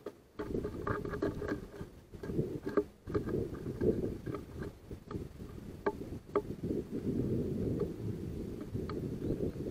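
Low, uneven rumble that rises and falls in gusts, with a few sharp taps of a house sparrow pecking at seed on the wooden feeder tray.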